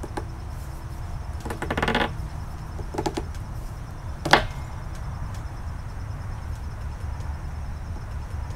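Short scraping creaks from a copper crimp ring being twisted by hand on a polybutylene pipe fitting, about a second and a half in and again near three seconds, then one sharp click a little after four seconds, over a low steady rumble.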